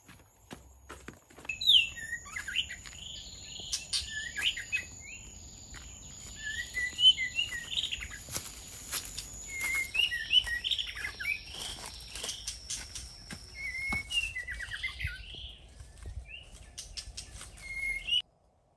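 Birds chirping in short, repeated calls, with scattered small clicks and crackles among them; all of it cuts off suddenly just before the end.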